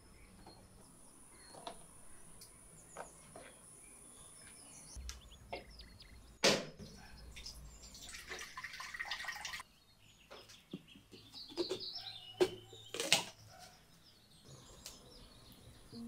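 Birds chirping faintly, with scattered sharp knocks and clicks, the loudest about six and a half seconds in, and a hiss lasting about a second and a half around eight seconds in.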